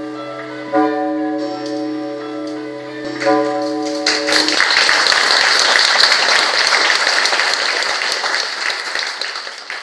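Sustained chords of the show's music ring out, struck again about three seconds in, then give way to a theatre audience applauding, which starts about four seconds in and holds strong.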